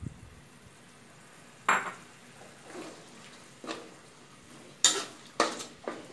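A metal spatula scraping and clanking against a wok as a thick coconut-milk curry is stirred, about six strokes, the loudest about five seconds in.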